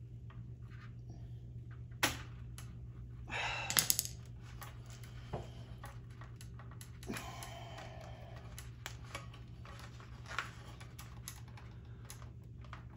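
Scattered small clicks and scrapes of a tool tip and metal spade connectors being worked off a capacitor on a Harvest Right freeze dryer's relay board, with a quick cluster of clicks about four seconds in. A steady low hum runs underneath.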